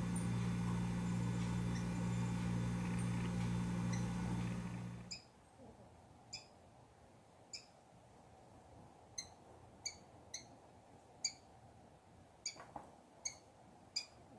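A steady low hum for about the first five seconds, which then cuts off. After it, a rufous-collared sparrow (tico-tico) gives about ten short, high call notes at irregular intervals.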